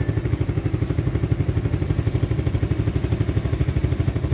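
Motorcycle engine running steadily, with a rapid, even pulsing.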